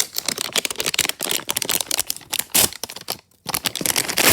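Small plastic blind-bag packets of Ooshies figures crinkling and tearing open by hand, a rapid crackly rustle with a short pause about three seconds in.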